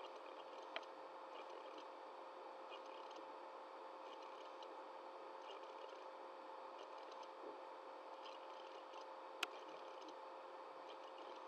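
Near silence: faint room tone with a steady electrical hum, broken by a small click near the start and a sharper click about nine seconds in.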